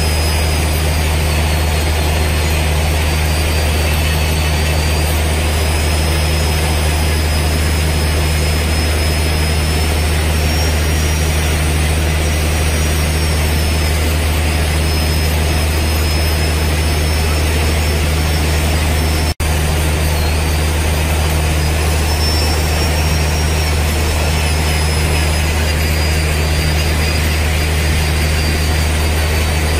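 Electric hand grinder running steadily with a cup-shaped grinding bit on the tungsten carbide buttons of a borewell down-the-hole drill bit. Its high motor whine wavers up and down as the load changes. The sound cuts out for an instant about two-thirds of the way through.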